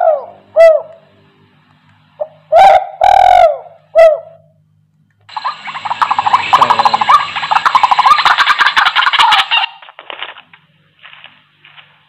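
Recorded bird calls played loudly through a camouflage hunting bird-caller speaker, switched by its remote: a few loud swooping calls in the first four seconds, then a dense, fast chattering bird song from about five to ten seconds in, followed by a few faint clicks.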